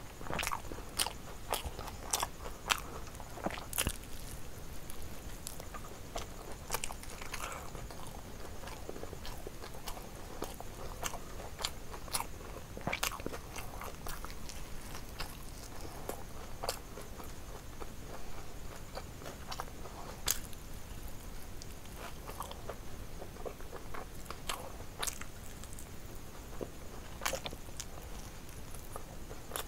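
A person biting and chewing fried fish and a fried chicken drumstick: irregular crisp crunches and clicks of bites between quieter chewing.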